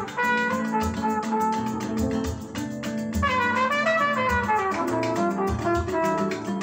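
Jazzy up-tempo music with a trumpet-led brass melody over a quick steady beat, with a falling run of notes about halfway through, played through a pair of stand-mounted hi-fi speakers driven by Odyssey Kismet mono-block power amplifiers.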